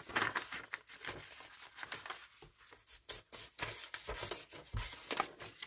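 A hand-held paper distressing tool scraping along the torn edge of embossed card stock in a series of short, irregular scratching strokes.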